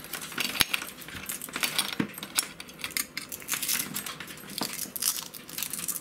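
Hands handling a coaxial cable and its metal RCA connector: irregular small clicks and rubbing, with one sharper click about half a second in.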